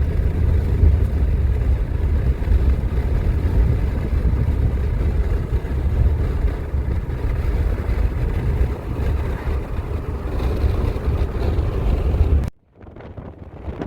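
Car driving: a steady low rumble of road and wind noise. It cuts off abruptly near the end and gives way to a quieter, thinner sound.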